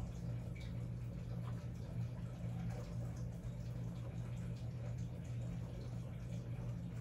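Faint, irregular light scratching and ticking of a Montblanc 1246 fountain pen's nib moving over paper, under a louder steady low hum.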